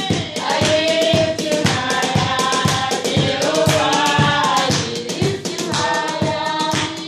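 A group of voices, children among them, singing a worship song together over a fast, steady beat of hand claps.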